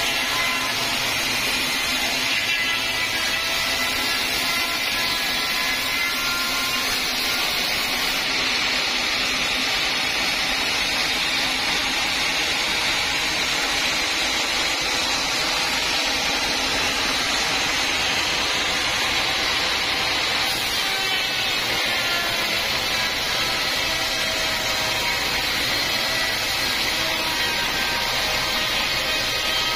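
Band sawmill cutting lengthwise through a teak log: the band blade runs steadily through the wood with an even, hissing saw noise and a faint whine whose pitch shifts slightly now and then.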